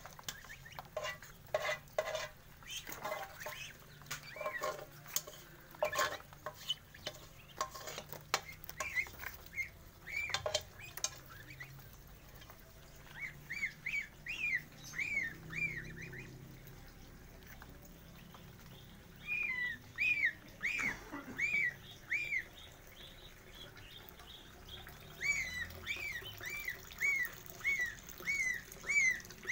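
Young poultry peeping: runs of short chirps that rise and fall, about two or three a second, around the middle and again through the last few seconds. Before them comes a run of quick clicks and knocks.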